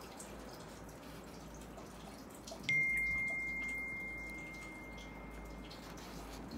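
A single clear, high ringing tone starts suddenly a little under halfway through and fades away over about three seconds, over faint room noise with small ticks.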